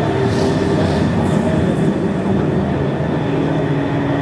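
Streetcar running along its rails, heard from inside the car: a steady motor hum with wheel-on-rail rumble, and a few brief high hisses in the first two seconds.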